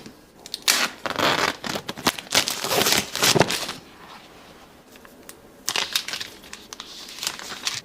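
Plastic packaging crinkling and tearing as a product is unboxed, in two spells: one for the first few seconds and another shorter one near the end.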